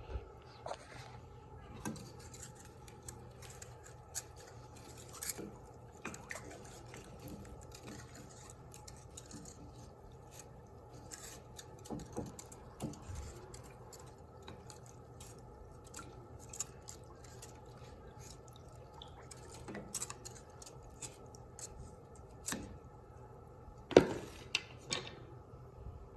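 Scattered light clicks and taps, like small objects being handled, over a steady low hum, with one louder knock about 24 seconds in.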